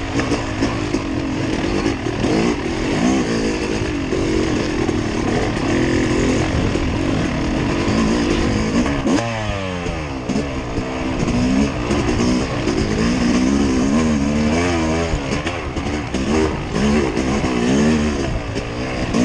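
Off-road vehicle engine running under load, its revs rising and falling repeatedly; the pitch drops sharply about nine seconds in, then keeps surging up and down.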